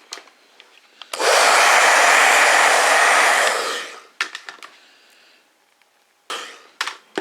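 Hot-air blower switched on for about three seconds, a steady loud rush of air heating the phone's front glass to soften its adhesive, then dying away. A few light clicks of tools on the phone follow.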